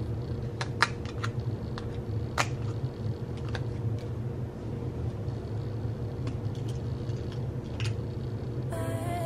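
Scattered light clicks and taps of plastic press-on nails being handled, peeled from their sheet and set down, over a steady low hum. Background music with singing comes back in near the end.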